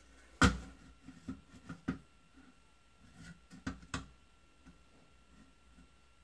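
Spirit level knocking against the wall as it is set in place: one sharp knock about half a second in, then several lighter taps and clicks as it is shifted and held.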